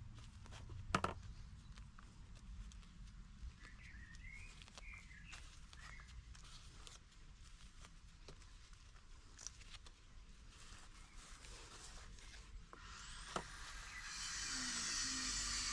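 Gloved hand working and pressing loose potting soil in a plastic plant pot: faint scratchy rustles and small clicks, with a sharper click about a second in. A bird chirps briefly around four to six seconds in, and near the end a steady hiss rises and takes over.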